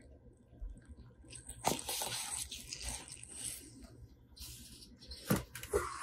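Handling of the stainless carafe and filter basket of a coffee maker as they are set in place: two knocks, with rustling and scraping between them.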